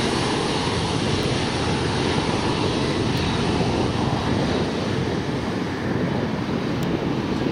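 Twin rear-mounted turbofan engines of a business jet running at taxi power as it rolls away, a steady jet noise.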